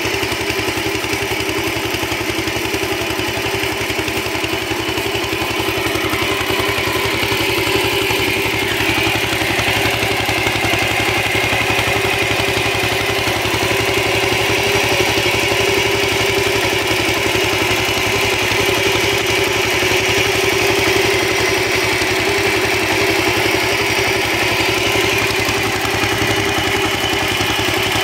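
Small single-cylinder stationary engine running steadily, driving an irrigation water pump by V-belt.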